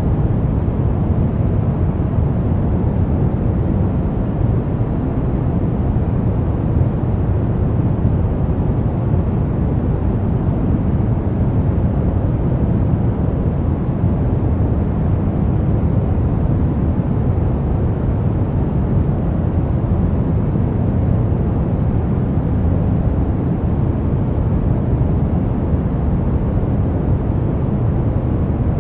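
Steady ambient noise track: a deep, even rumble of noise with most of its weight in the low end and little hiss. It does not change.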